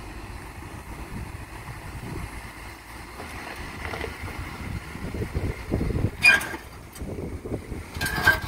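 Jeep Gladiator pickup crawling over a rock ledge: a low engine and drivetrain rumble that swells unevenly as the truck climbs, with a couple of short high squeals near the end.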